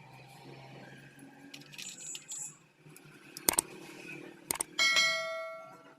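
Light metal clattering of tools and parts, two sharp knocks, then a metal part struck once near the end, ringing like a bell and fading over about a second.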